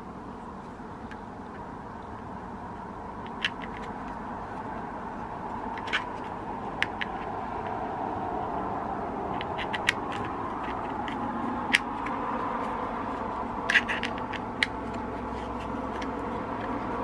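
Steady running noise of a moving car, slowly growing louder, with a scattering of short sharp clicks.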